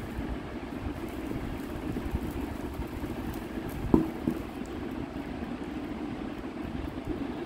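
Steady low mechanical hum throughout, with a sharp knock about four seconds in and a smaller one just after.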